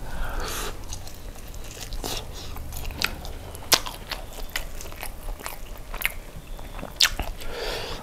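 Close-miked chewing of crispy, sauce-glazed spicy fried chicken, a run of small crackling clicks with two sharp loud crunches, one a little under four seconds in and one about seven seconds in.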